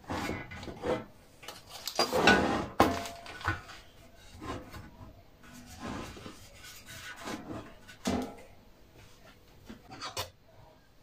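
Metal oven tray being handled and set down on a gas hob's pan supports: irregular scrapes and clatters, loudest about two to three seconds in, with further knocks later.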